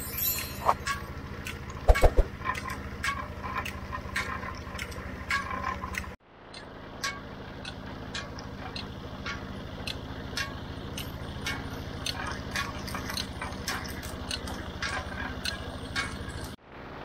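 Sugarcane roller crusher running: a steady mechanical hum with frequent sharp clicks and cracks as cane stalks are fed through the rollers. The sound cuts out briefly about six seconds in and again near the end.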